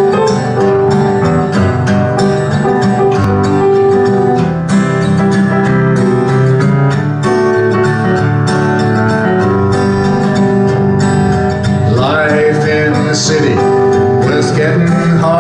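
Acoustic guitar strumming with piano in a country-style song intro; a man's voice comes in over the instruments about twelve seconds in.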